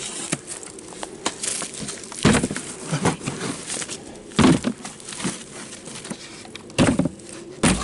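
Dry branches and firewood cracking and crunching as they are broken underfoot and by hand. There are sharp snaps at irregular intervals, the loudest about two, four and a half and seven seconds in.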